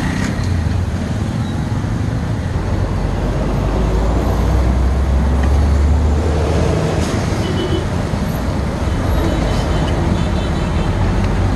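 Steady low rumble of road traffic, swelling slightly about five seconds in.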